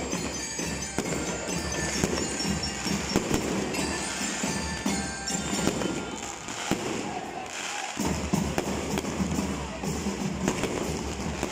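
Aerial fireworks popping and crackling in a rapid, continuous string over music from the stadium loudspeakers. The music's bass drops away briefly about seven seconds in and comes back a second later.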